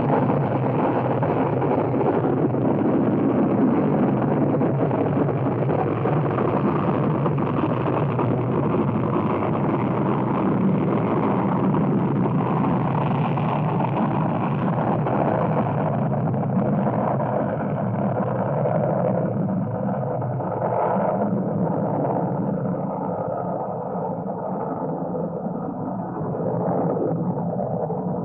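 Space radio sound effect: continuous muffled static-like noise over a low hum, with nothing bright in it, growing duller and thinner in its last third with some faint wavering tones.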